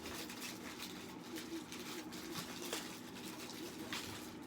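Faint pattering and scratching of cats' paws as the cats run about and play.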